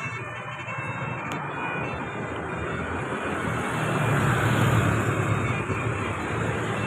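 A large bus passing close by, its engine and tyre noise swelling to a peak about four to five seconds in and then easing off.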